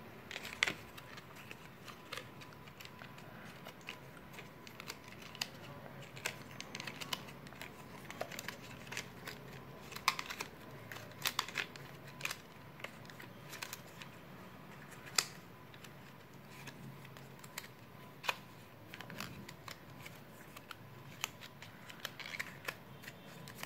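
Faint paper crinkles and irregular small clicks of hands bending the cut strips of a paper cup back one by one.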